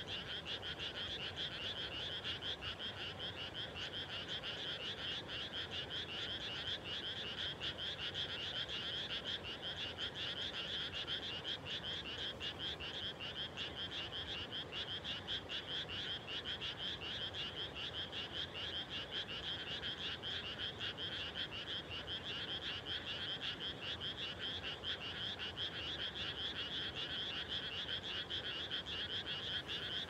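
A steady chorus of many frogs calling at once, their rapid pulsed calls overlapping into an unbroken din.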